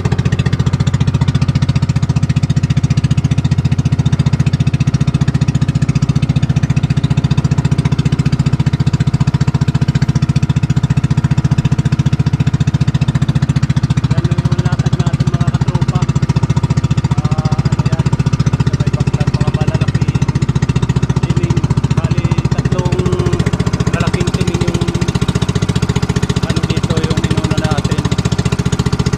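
Small fishing boat's engine running steadily at constant speed, with a rapid, even firing beat.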